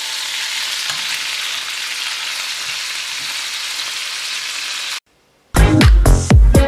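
Beef steaks sizzling as they fry in butter in a pan. The sizzle cuts off suddenly about five seconds in, and after a brief silence loud music with a heavy beat starts.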